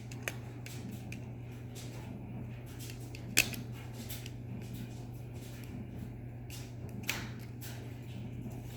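Small plastic parts being handled: scattered light clicks and taps, with two sharper clicks a few seconds apart, over a steady low hum.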